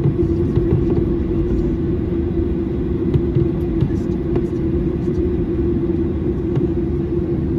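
Airliner cabin noise while taxiing: a steady jet-engine hum with one held tone over a low rumble from the wheels rolling on the taxiway, with a few faint ticks.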